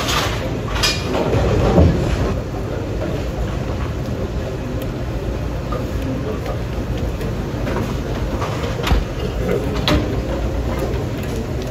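Bowling alley din: a steady low rumble from balls rolling on the lanes and the pinsetting machinery, with a few sharp knocks scattered through it.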